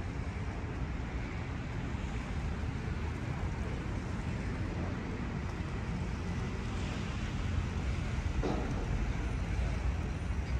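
Steady town-street ambience: a continuous rush of distant road traffic over a low rumble.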